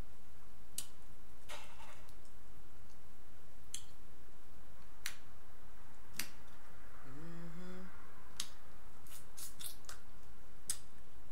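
Wet clicks and smacks of eating at close range, lips and mouth working on food, with a quick run of clicks a little past nine seconds. A brief hummed 'mm' about seven seconds in.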